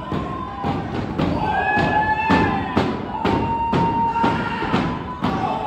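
Pro wrestling ring: a quick run of heavy thuds, about two to three a second, from strikes and boots landing on the ring canvas, with drawn-out shouts from the crowd over them.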